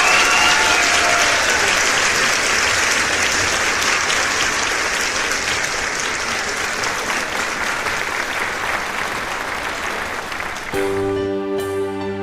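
Large audience applauding, slowly dying down. About eleven seconds in, slow music starts with sustained notes.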